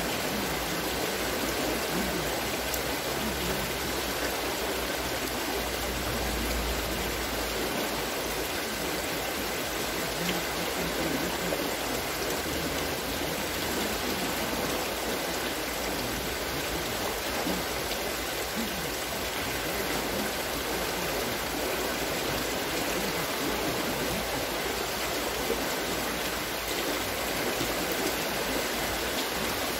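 Steady splashing and rushing water from a turning wooden water-scooping wheel (Wasserschöpfrad), its buckets pouring water out as they come over the top.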